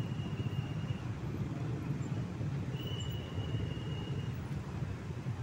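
Many motorcycle engines idling together in heavy traffic, a steady low rumble. A thin high steady tone cuts out about a second in and sounds again for about a second and a half in the middle.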